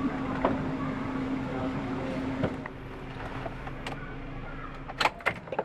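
A vehicle engine running with a steady hum. Its tone fades about two and a half seconds in, and a few sharp knocks follow near the end.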